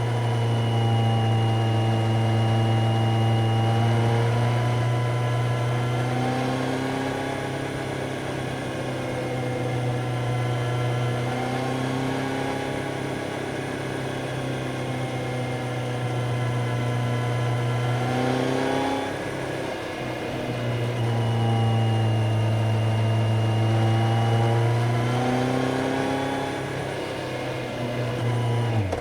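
Kawasaki Z900's inline-four engine running under way, its pitch rising and falling slowly as the throttle changes. The pitch drops about two-thirds of the way through and then climbs again.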